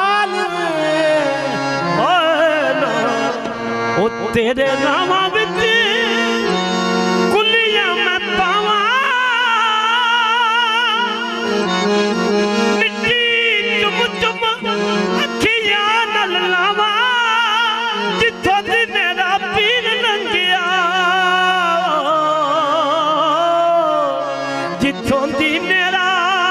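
Qawwali music: harmoniums play a sustained, wavering melody over sharp percussion strokes.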